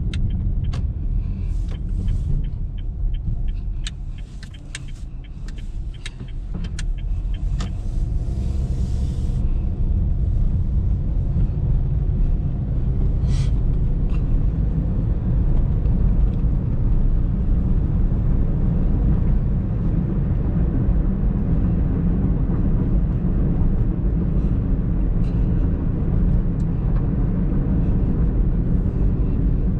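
A 2019 Honda Brio V CVT being driven: a steady low rumble of engine and road noise that eases off about four to six seconds in, then builds again and holds. Scattered clicks and light rattles come in the first several seconds, with a brief hiss just before the ten-second mark.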